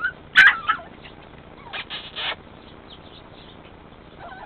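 Small-breed puppies yipping and squealing as they play-wrestle: a loud, high squeal about half a second in, then a few short yaps around two seconds.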